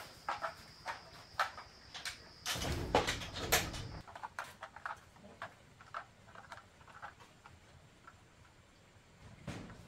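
Footsteps, about two a second, with a plastic carrier bag rustling as it is carried; a louder stretch of rustling and handling noise comes about two and a half seconds in.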